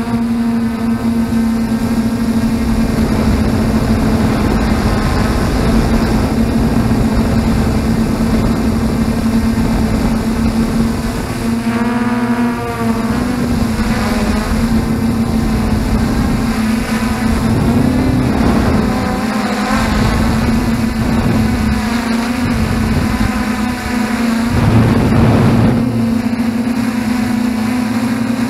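F450 quadcopter's brushless motors and propellers humming steadily, heard from the camera on its frame, the pitch shifting several times as the throttle changes. Wind rumbles on the microphone underneath.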